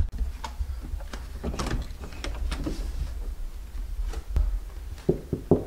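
Handling noise from a camera carried by hand while someone walks out through a doorway: a sharp click right at the start, a steady low rumble, and scattered soft knocks and steps, with a short cluster of knocks near the end.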